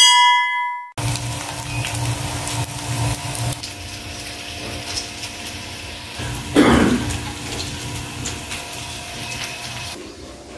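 A bell-like notification chime from a subscribe-button animation rings and cuts off about a second in. It is followed by continuous kitchen noise: a steady hiss with a low hum, and one brief louder noise about two-thirds of the way through.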